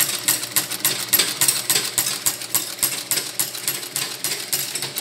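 Adler heavy-duty cylinder-arm double-feed sewing machine, geared down with a speed reducer, stitching through layered leather scraps: a steady rapid clatter of about five to six needle strokes a second.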